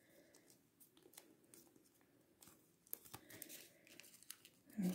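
Faint crinkling and rustling of a sheet of origami paper being folded and creased by fingers, with soft scattered paper clicks that grow busier in the second half. A brief louder low sound comes near the end.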